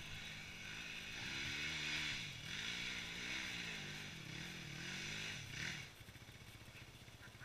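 Yamaha WR250 dirt bike engine revving up and down over and over as it climbs a steep woodland track, heard from up the hill; the engine note falls away about six seconds in.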